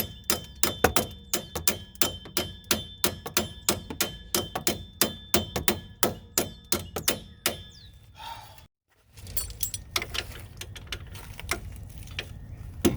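Hand ratchet wrench clicking steadily, about three to four clicks a second, as a suspension bolt is turned out. A short break about two-thirds of the way through, then faster, fainter clicking that grows louder near the end.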